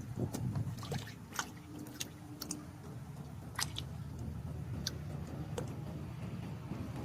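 Scattered wet squelches and small splashes of water and mud, over a steady low rumble.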